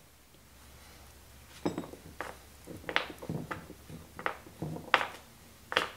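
Pliers and metal lathe parts clinking and tapping as a gear assembly is worked apart: a run of about ten sharp metallic clinks at uneven intervals, starting about a second and a half in.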